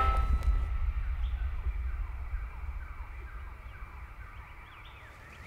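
A rising, siren-like soundtrack drone breaks off, leaving a deep low rumble that slowly fades away. Faint short bird chirps sound over quiet woodland ambience.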